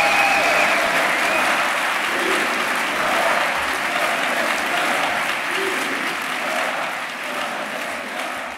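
A large theatre audience applauding steadily, the clapping fading gradually toward the end.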